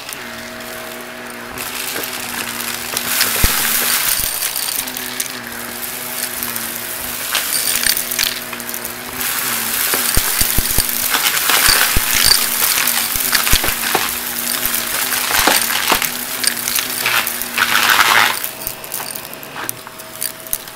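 Shark Navigator upright vacuum running with a steady motor hum and rushing air as it sucks up a heap of confetti, glitter and dirt from carpet. Pieces of debris click and rattle sharply as they are drawn up, thickest in the middle stretch.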